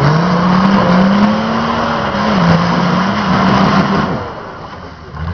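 4x4 off-roader's engine revving hard as it churns through deep mud; the revs climb, hold high with a brief dip, then drop away about four seconds in.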